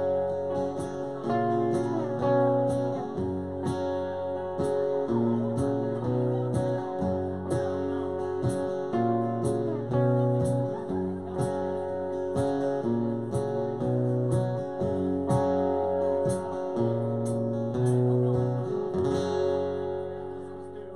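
Country band playing live, with no singing: guitar chords that change every second or so over a steady high tapping beat. The music dies away near the end.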